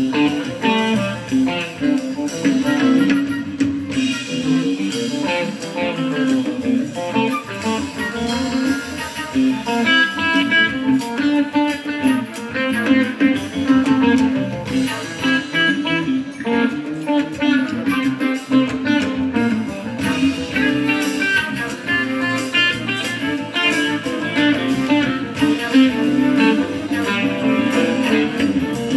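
Live band playing, with guitar to the fore over a steady beat.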